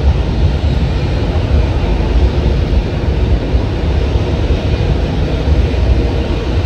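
Steady aircraft noise on an airport apron: a constant rushing sound with a heavy, unsteady low rumble and no single event standing out.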